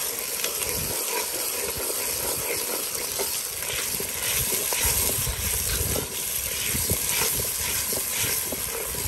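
Ginger-garlic paste and red chilli masala sizzling and crackling in hot oil in a large metal pot, with a steel ladle stirring and scraping through it. This is the masala frying down until the oil separates.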